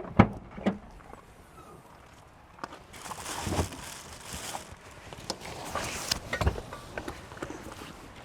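A few sharp knocks and thuds with stretches of rustling, like movement and handling of gear at a camp.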